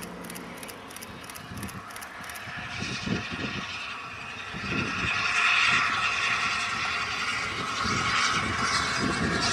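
Steam locomotive hauling a passenger train past, with its exhaust and the running noise of the coaches along the track growing louder about halfway through. Wind buffets the microphone.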